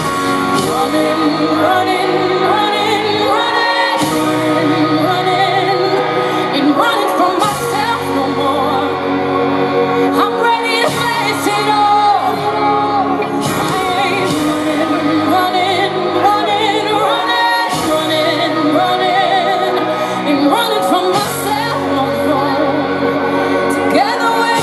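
A woman sings live into a microphone over a full band, with long held notes and quick melodic runs. It is heard as stadium concert sound through the venue's PA.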